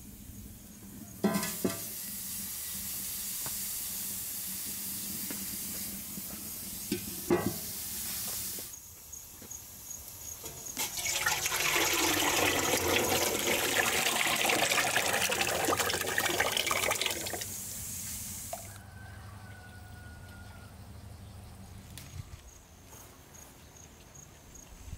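Water running in two spells: first a thin hissing stream for several seconds with a couple of knocks, then, after a short pause, a louder, fuller gush for about six seconds.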